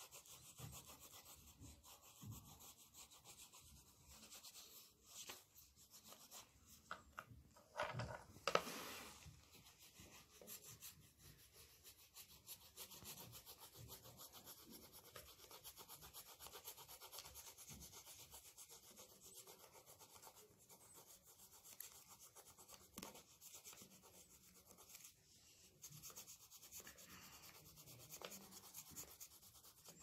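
A wax crayon rubbed back and forth across paper, a faint steady scratchy scribbling as a page is colored in, with a brief louder rustle about eight seconds in.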